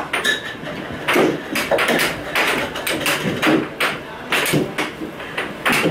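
Air hockey pucks and mallets clacking against each other and the table rails in quick, irregular hits during a two-puck game.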